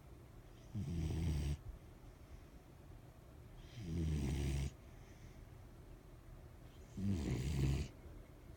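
Dog snoring in its sleep: three snores, each about a second long, roughly three seconds apart.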